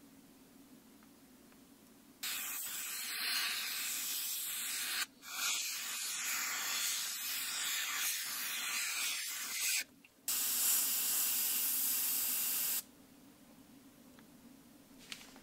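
Gravity-feed airbrush spraying paint, hissing in three bursts of a few seconds each with short breaks between.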